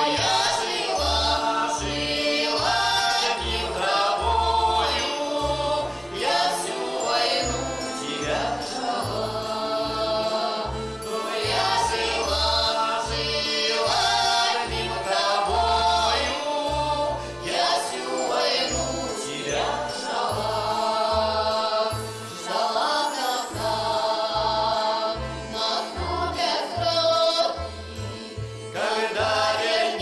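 A woman and a man singing a song together to a button accordion (bayan), with a wide vibrato in the woman's voice. The accordion's left-hand bass notes pulse in a steady rhythm underneath.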